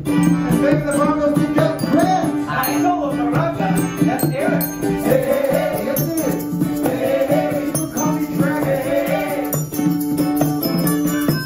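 A small live group playing bongos and hand-held shakers and scrapers in a steady rhythm, over held pitched notes and a wavering melody line.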